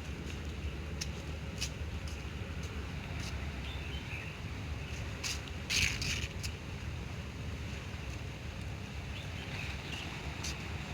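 Outdoor ambience: a steady low rumble with scattered light clicks, and a short louder burst about six seconds in.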